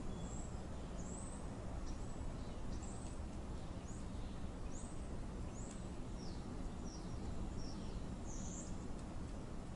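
Birds giving short, high, falling chirps about once or twice a second over a steady low outdoor rumble.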